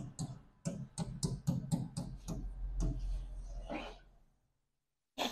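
Marker pen writing on a board: a quick run of short strokes and taps, about four a second, that stops about four seconds in.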